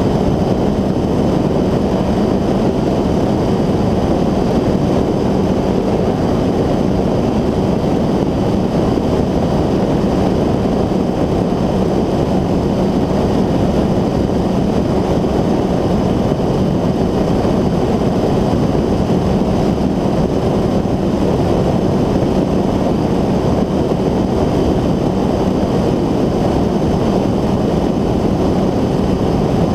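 North Wing Maverick 2 ultralight trike's engine and pusher propeller running steadily at cruise, a constant loud drone.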